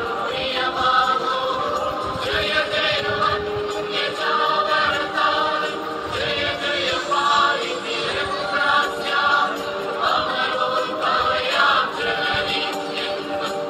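Background music: a choir singing in long sustained phrases.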